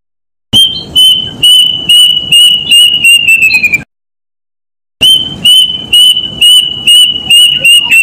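A cuckoo's song, given twice: a run of loud, clear, high whistled notes at a steady pitch, evenly spaced at first, then quickening and falling in pitch at the end. Each run cuts off suddenly.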